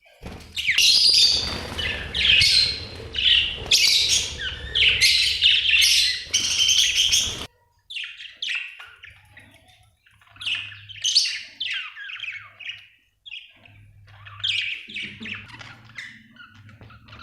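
Budgerigars chirping in a rapid stream of short, high calls. The chatter is dense for about the first seven seconds, cuts off abruptly, then comes back sparser in short runs.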